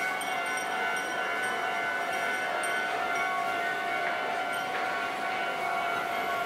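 Steady railway-station hum with several held tones and a faint high ticking; no single event stands out.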